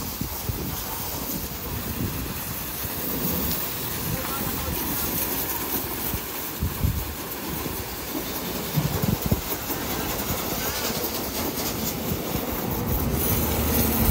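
Steady hiss of a high-pressure water jet spraying down a dumper truck at a vehicle wash, with a low rumble underneath, growing a little louder near the end.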